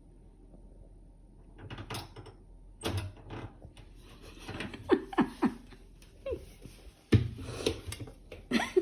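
Microwave oven door being pulled open and pushed shut, several clunks and knocks of the door and latch, with a small child's short falling vocal sounds in between.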